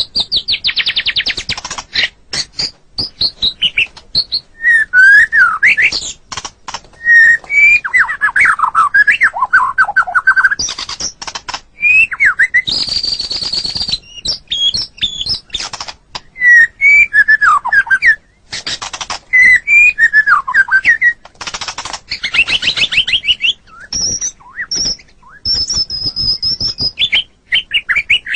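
White-rumped shama (murai batu) singing a long, varied song: clear whistled phrases, rising and falling slurs, fast trills, harsh buzzy notes and sharp clicks, with hardly a pause.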